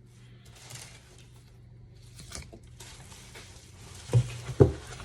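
Packaging of a boxed steering wheel being handled and opened: faint rustling and scraping, then two sharp thumps about four seconds in.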